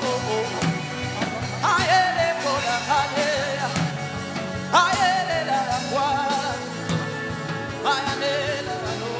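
Worship music: a steady keyboard and bass with a beat, under a voice singing long phrases that slide up and down in pitch, a new phrase about every three seconds.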